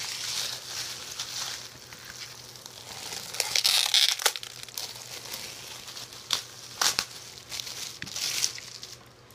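Packaging of a pair of batting gloves being torn and crinkled open by hand: uneven rustling that swells about a third of the way in and again near the end, with a few sharp clicks and snaps in between.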